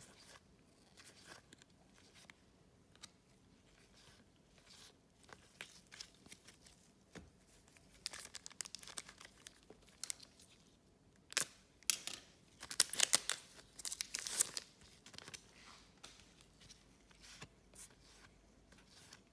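Foil wrapper of a trading-card pack crinkling and being torn open. The crackling is sparse at first, with louder bursts of tearing about eight seconds in and again around twelve to fourteen seconds in.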